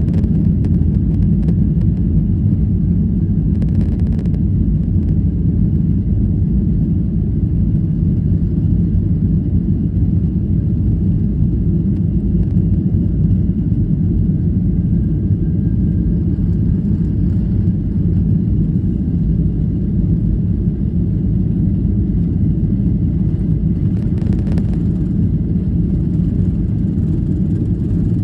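Steady low rumble in a jet airliner's cabin as it moves along the runway, engine and rolling noise blended together. A brief faint hiss comes about four seconds in and again near the end.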